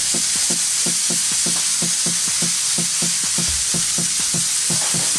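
Marinated whole tilapia sizzling steadily on a hot flat griddle plate, a dense hiss as the moisture cooks off. Underneath runs a quick, even beat of about four or five strokes a second.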